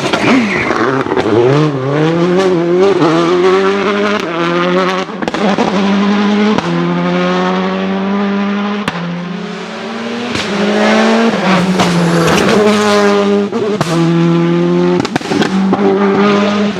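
Citroën Xsara WRC's turbocharged 2.0-litre four-cylinder engine revving hard, climbing and dropping in pitch several times and holding high revs in between, with several sharp cracks from the anti-lag system.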